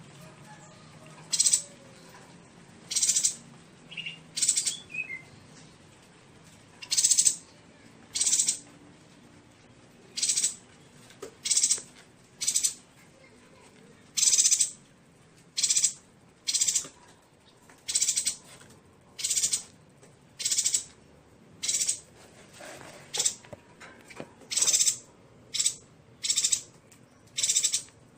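Yuhina calling: a short, high-pitched, buzzy note repeated about once a second, over twenty times, with a few faint lower notes about four seconds in.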